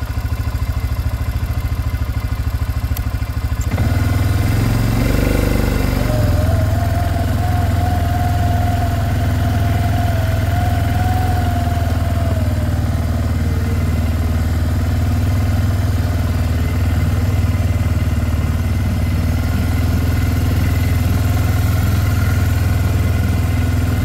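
Four-wheeler (ATV) engine idling, then louder about four seconds in as it pulls away, running steadily after that. A thin whine comes in for several seconds soon after it gets moving.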